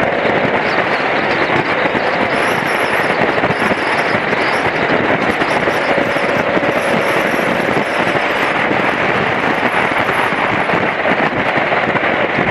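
Steady rush and crackle of wind buffeting the microphone of a camera on a moving BMW F700GS motorcycle, with the bike's parallel-twin engine running underneath.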